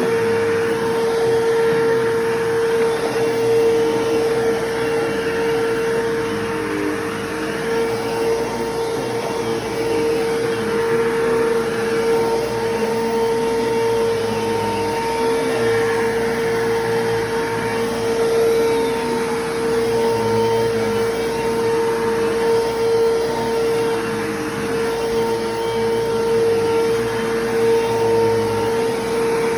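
Bissell Lift-Off 3750-T bagless vacuum cleaner running while vacuuming, with a steady motor whine. The sound swells and eases gently every few seconds.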